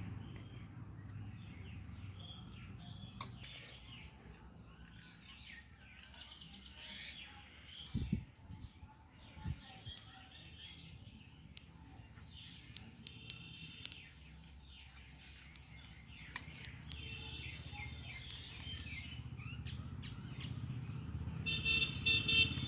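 Birds chirping and calling over and over, with a low steady rumble underneath and two dull thumps about a third of the way in.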